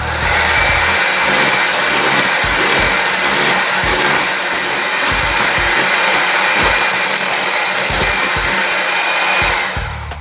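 Electric hand mixer switched on and running steadily with a high motor whine as its beaters whip a coffee mixture into whipped cream in a glass bowl, then stopping near the end.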